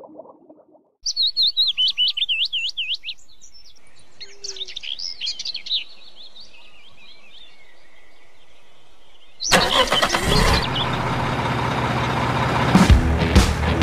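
A bird chirping in quick warbling phrases, loudest in the first couple of seconds. About nine seconds in, a loud engine-like rumble starts abruptly and runs on, with a few sharp knocks near the end.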